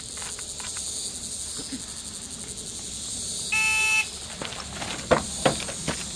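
Electronic shot timer giving its start beep, a single tone about half a second long, over a steady high drone of insects. A few sharp knocks follow a second or so later.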